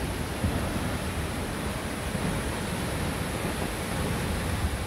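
A waterfall and the stream below it rushing over boulders: a steady, unbroken noise of falling water with a low rumble underneath.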